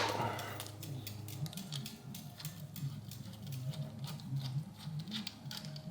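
A wrench on the 14 mm crank bolt of a bicycle's square-taper crank: a sharp click at the start, then irregular light metallic ticks and taps as the bolt is worked loose.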